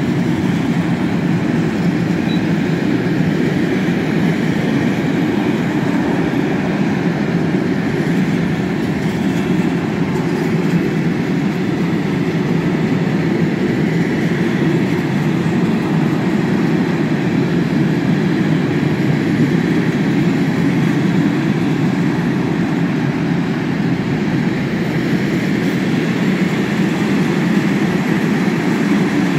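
Freight train of rail tank wagons rolling past: a steady rumble of wheels on the rails.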